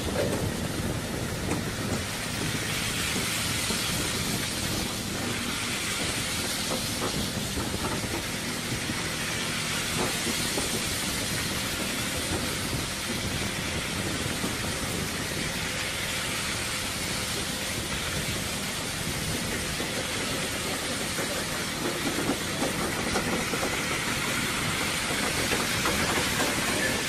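A long train of multi-axle trailers loaded with steel rails rolling past close by: the steady noise of many tyres on gravel, with a few light knocks from the trailers and load.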